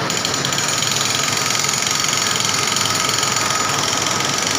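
Mercedes-Benz coach's diesel engine idling steadily, with a fine rapid clatter.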